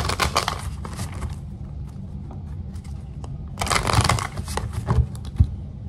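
Tarot cards being shuffled and handled, in two bursts of rustling with small clicks, one at the start and another about three and a half seconds in.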